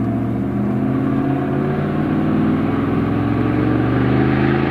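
Background music with sustained low chords that change every second or so.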